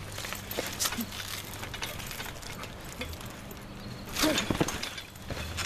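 Rustling and scraping of a trampoline's mesh enclosure net as it is pulled and pushed aside by hand. There is a louder burst of handling noise with a brief vocal sound about four seconds in.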